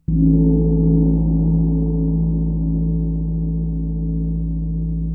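Intro sound effect: one deep ringing tone, gong-like, that starts suddenly and rings on, slowly fading.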